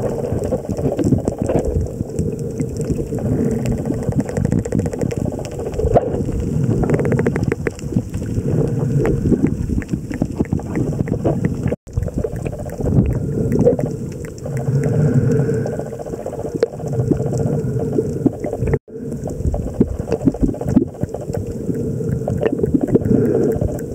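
Underwater sound picked up by a camera among swimming spinner dolphins: a rumbling wash of water noise with many crackling clicks. It cuts out for an instant twice.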